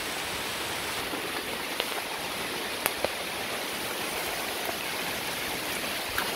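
Steady rushing hiss of a heavy downpour over a fast-flowing, swollen river, with a few faint sharp ticks.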